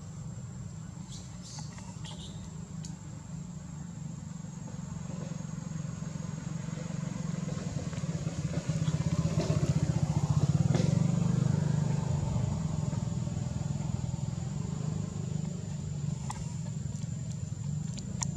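A low steady engine drone from a passing vehicle, growing louder to a peak about halfway through, then slowly fading.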